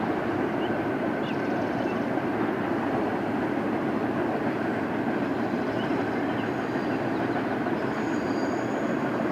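Freight train cars of a BNSF garbage train rolling past, their steel wheels on the rails making a steady, even noise. Faint high wheel squeals come in during the second half.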